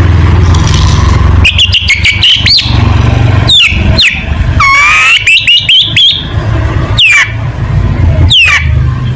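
Long-tailed shrike (cendet) singing in loud bursts: sharp whistles that sweep steeply downward, several times, with quick rattling runs of short notes in between. A steady low hum runs underneath.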